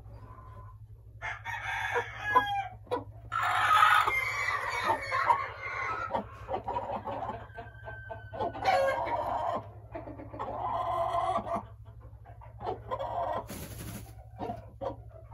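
A hen calling in a run of loud clucks and drawn-out squawks, the longest stretch about four seconds in and more calls around nine and eleven seconds. Near the end comes a brief flutter as she shakes out her feathers.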